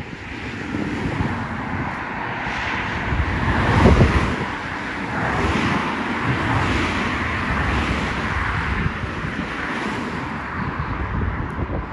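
A car passes by, loudest about four seconds in, over steady wind noise on the microphone.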